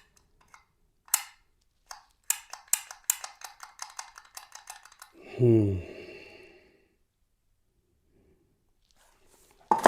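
Sharp clicks and light clacks of small hard parts being handled, a few at first and then several a second for about three seconds. About five seconds in, a man's voice gives a short groan that falls in pitch.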